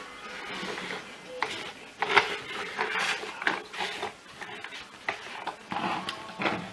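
Plastic vacuum floor head from a Vax Blade cordless vacuum being picked up, turned over and set down on a table: a run of short knocks and clatters of hard plastic, with rubbing and handling noise in between.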